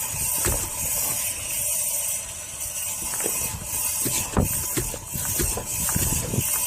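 Raised rear wheel and hub of an Audi S3 turning, with a scraping hiss that pulses in time with the rotation and irregular clicks and clunks. This is a rear-end fault the owner suspects is a wheel bearing or a brake pad.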